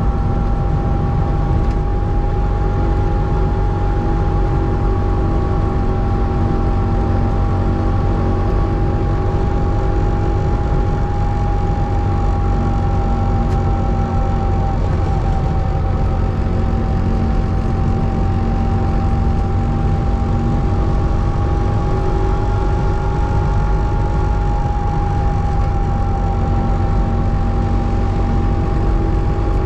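A 1984 Trabant 601S's air-cooled two-stroke 594cc two-cylinder engine running steadily while the car is driven, its pitch holding nearly constant with only slight rises and falls, over a low rumble.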